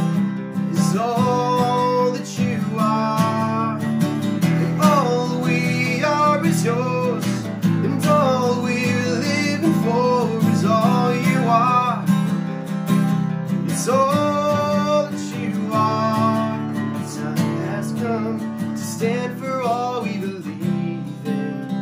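Two acoustic guitars strummed together, with a gliding melody line above the chords.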